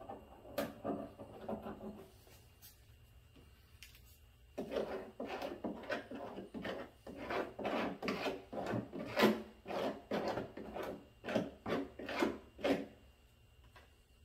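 Quick back-and-forth rubbing strokes, about two a second, from a small hand-held tool worked over a black patch bonded onto a plastic poly tank. The strokes start about four and a half seconds in and stop shortly before the end, after a few fainter scrapes near the start.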